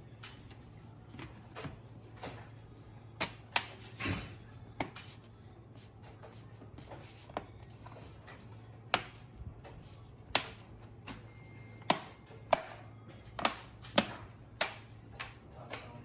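Irregular sharp plastic clicks and taps of hands working on a laptop's case and parts, roughly one a second with some close pairs, over a steady low hum.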